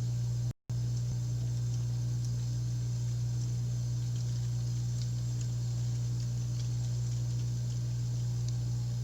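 York 3-ton package heat pump running through a defrost cycle with a steady low hum and faint scattered ticks. The sound cuts out for an instant about half a second in.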